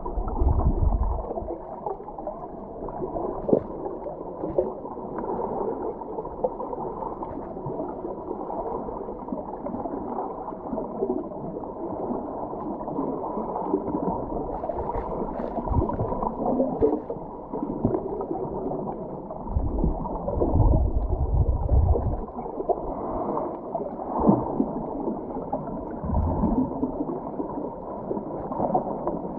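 Muffled underwater sound from a camera submerged while snorkelling: water churning and gurgling around the camera, with low rumbles near the start and about twenty seconds in.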